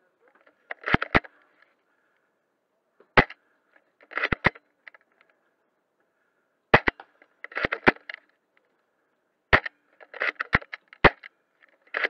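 Novritsch SSG24 spring-powered bolt-action airsoft sniper rifle firing about once every three seconds. Each sharp shot is followed about a second later by two clicks as the bolt is worked back and forward to cock the spring for the next shot.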